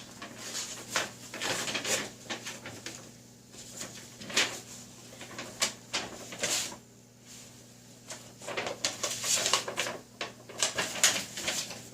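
Paper and packaging being handled and rustled in short, irregular bursts as the instruction sheet is pulled out and unfolded.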